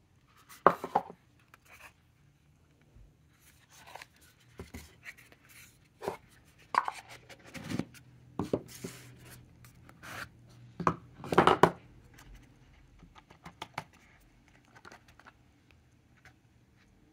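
Small kraft-cardboard boxes being handled and slid open, with irregular scrapes, rubs and light taps of cardboard. The loudest scrapes come about a second in and again around eleven to twelve seconds.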